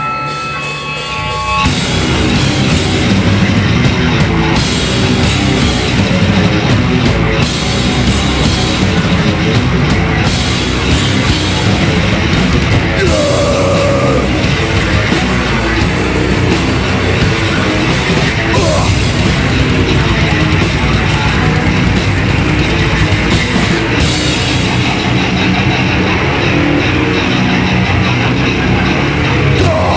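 Live heavy metal band (distorted guitars, bass and drum kit) crashing in about a second and a half in, after a few sustained tones, then playing loud and dense throughout.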